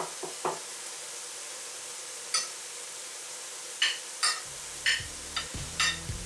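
A metal spoon clicks and taps against cookware about a dozen times, over the steady hiss of a simmering, sizzling pan. A low hum comes in partway through.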